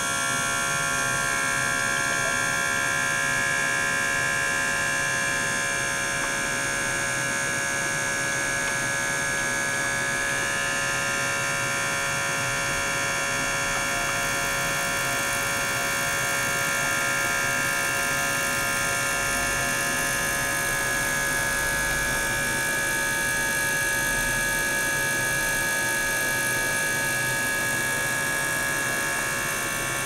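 A small DC-motor gear pump circulating water, running together with an ultrasonic cleaner: a steady, even whirring whine with several held high tones.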